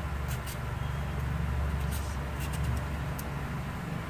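Kitchen knife scraping a carrot in a few short strokes, over a steady low hum.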